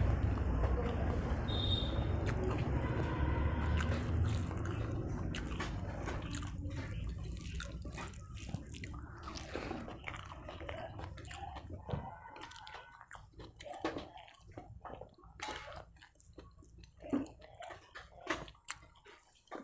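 Close-up eating sounds: chewing and wet mouth smacks as rice and fried plantain are eaten by hand. A steady low rumble under the first half fades out about twelve seconds in, leaving scattered sharp clicky smacks.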